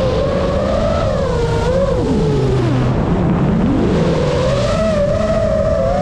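FPV racing drone's brushless motors whining with a buzzy, pitched tone that drops steeply about two seconds in as the throttle comes off for a dive, then climbs back up as power is punched in again.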